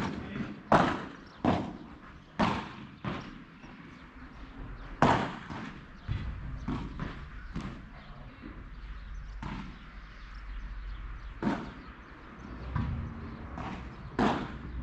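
Padel rally: about a dozen sharp pocks of the ball off solid padel rackets and bounces on the court, irregularly spaced. A low rumble runs under the second half.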